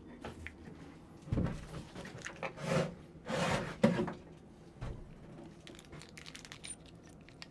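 Rustling and knocks from small drain parts being handled, in a few bursts over the first four seconds and ending in a sharp click, then fainter handling.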